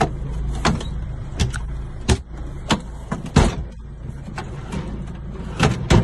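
A run of sharp knocks and clicks inside a truck cab, roughly one every 0.7 s with a gap near the end, as a hand works around the storage drawer and bunk, over a steady low hum.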